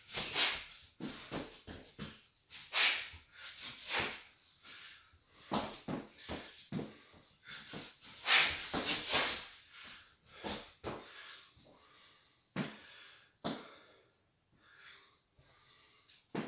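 A boxer's short, sharp hissing exhales timed to his punches as he shadowboxes hooks with ducks, a quick breath out with each blow, coming in irregular clusters.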